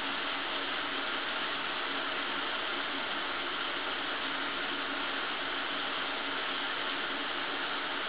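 Shower running: a steady, even hiss of water spraying, unchanging throughout.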